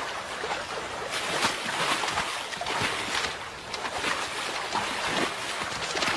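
Shallow river rushing over stones, with irregular splashes of bison hooves wading through the water.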